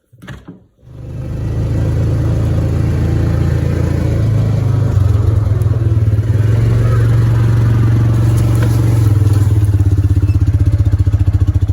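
An engine running steadily at low revs, building up over the first second or two, with its pitch stepping up a little about five seconds in.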